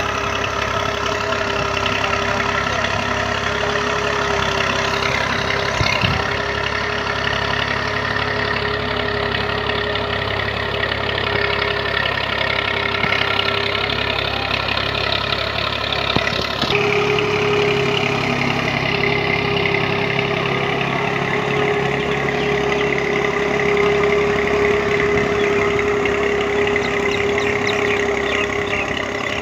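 An engine running steadily, its sound changing abruptly about two-thirds of the way through.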